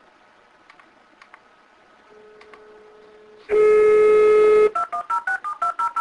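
Telephone dial tone, a steady tone heard faintly and then loudly for about a second, followed near the end by a quick run of about eight touch-tone keypad beeps as a number is dialled. A few faint clicks come before.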